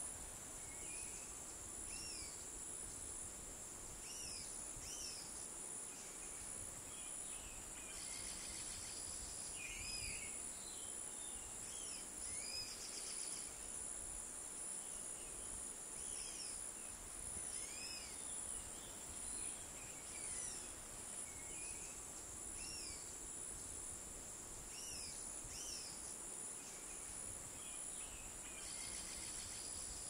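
Dusk forest insect chorus: crickets and cicadas holding two steady high-pitched drones, with short bird calls scattered throughout. A pulsing insect buzz swells in about a third of the way through and again near the end, over light wind low underneath.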